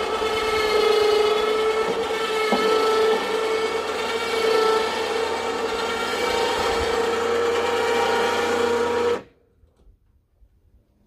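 Battery-powered electric winch motor running with a steady whine under load as it pulls a tilt-over tower upright, then cutting off abruptly about nine seconds in.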